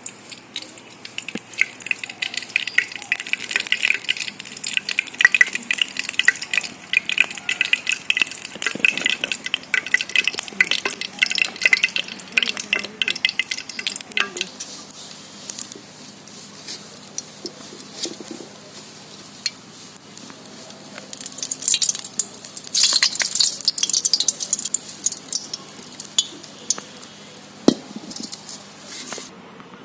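Mustard oil heating in a black iron karahi, sizzling and crackling densely for the first half, easing off, then sizzling again later. A single sharp knock of the pan near the end.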